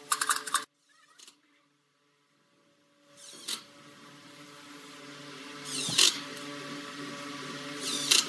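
Cordless impact driver driving screws through caster-wheel mounting plates into pallet wood. It opens with a brief rapid hammering that cuts off sharply. After a pause the motor runs again, building up, with loud hammering bursts around the middle and near the end as screws bite and seat.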